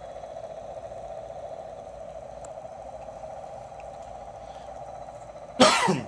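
A steady, unexplained droning hum, which the listener likens to a helicopter idling somewhere behind nearby buildings. Near the end it is broken by a short, loud throat noise close to the microphone, for which he excuses himself.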